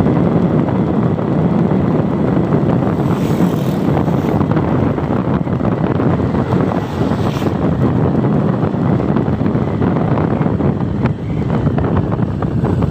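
Steady wind rushing over the microphone of a moving vehicle, mixed with the vehicle's running noise.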